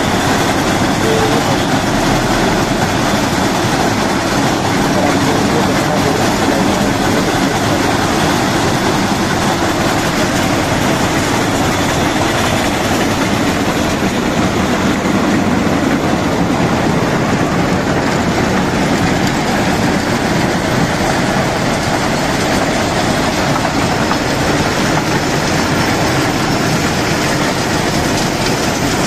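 Plasser RM-900 ballast cleaning machine working: its engines run steadily while the excavating chain digs and carries track ballast under the sleepers, a loud continuous machine noise with no let-up.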